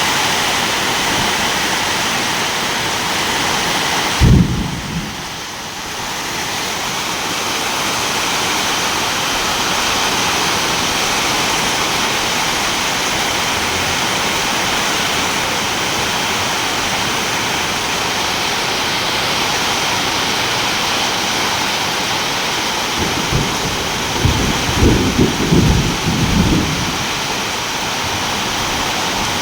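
Steady heavy rain with thunder: a sharp low clap about four seconds in, then a few seconds of rumbling near the end.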